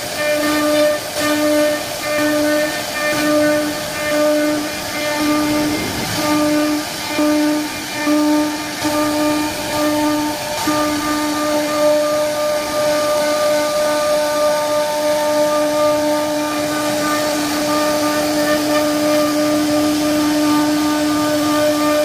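Spindle of a CNC wood-carving router whining at a steady high speed over the hiss of the bit cutting wood. The whine dips and returns about three times every two seconds for the first ten seconds or so, then holds steady.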